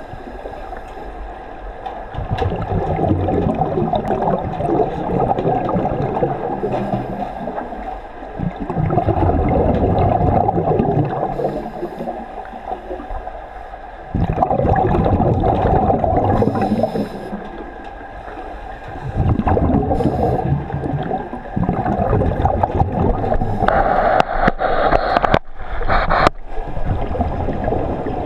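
Scuba divers' regulators heard underwater: bubbling rushes of exhaled air that swell and fade about every five seconds, with a brighter hissing spell a little before the end.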